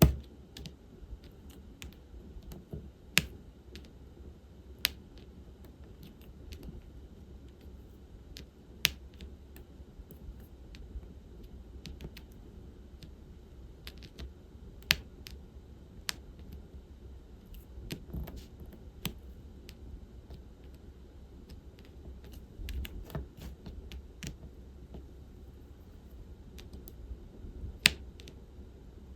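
Diamond painting at work: small, irregular plastic clicks and taps as a drill pen picks up resin drills and presses them onto the canvas, with a few sharper, louder taps, over a steady low hum.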